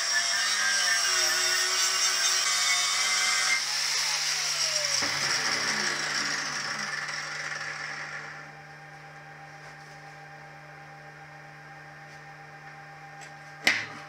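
Angle grinder grinding down a weld bead on a steel box, then switched off about three and a half seconds in and spinning down with a falling whine over a few seconds. A steady low hum remains, and there is one sharp knock near the end.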